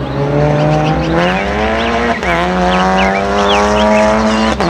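Red Audi RS 3 touring race car's engine under acceleration. Its pitch climbs, drops sharply at a gear change about two seconds in, climbs again, and drops at another shift near the end.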